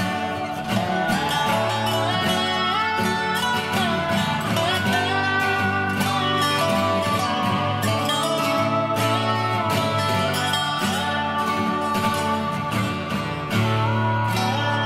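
Background music led by a plucked acoustic guitar, with a quick, steady picking rhythm.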